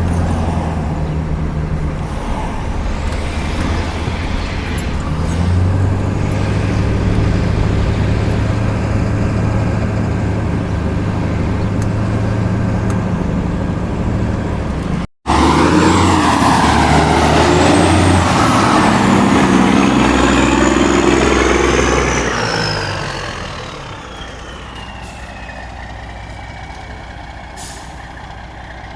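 A heavy truck's engine running steadily. After a break about halfway, a louder spell of rushing noise comes in with a high whine that falls slowly in pitch, then dies away to a quieter low engine hum.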